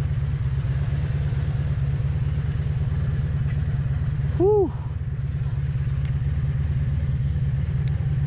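Motorcycle engine running steadily with a low rumble as the bike rolls slowly. About halfway through, a brief tone rises and falls once.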